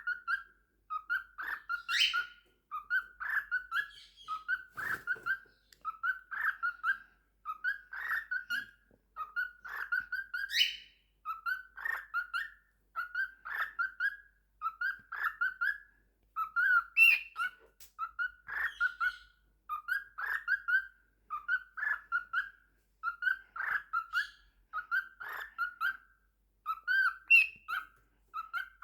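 Lutino cockatiel singing: a short warbled phrase repeated over and over, about once a second, with a rising whistled swoop twice, once near the start and once about ten seconds in.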